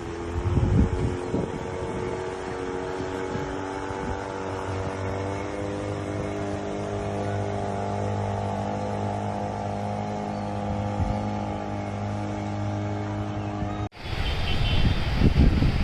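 An engine running steadily, its pitch rising slightly partway through. About two seconds before the end it cuts abruptly to a louder, rough rumbling noise.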